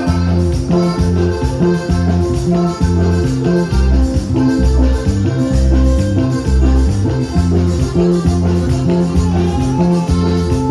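Norteño band with saxophone playing an instrumental break: a melody of held notes over a bass line that steps to a steady beat.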